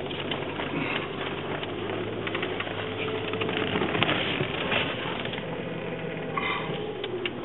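Handling noise on a phone's microphone while it is carried and moved: rustling and scattered clicks over a steady low hum, with a brief high pitched sound near the end.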